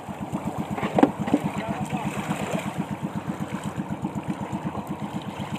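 Engine of a motorized outrigger boat running with a steady, rapid putter as it tows a small canoe by rope. A brief knock or exclamation comes about a second in.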